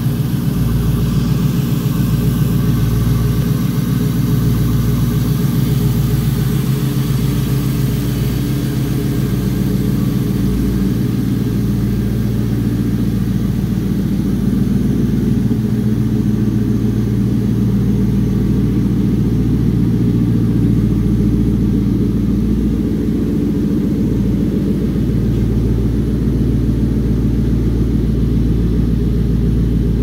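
Pontiac Firebird engine idling steadily.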